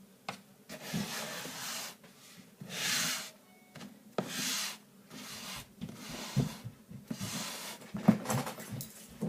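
A run of short hissing, rubbing noises, about half a second to a second each, with a few light clicks and taps in between.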